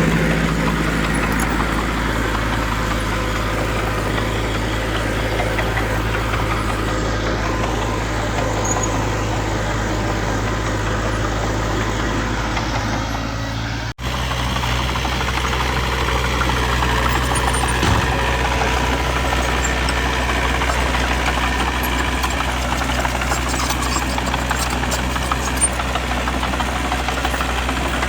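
Diesel engine of heavy earthmoving machinery running steadily with a low, even hum. It drops out for an instant about halfway through, then carries on.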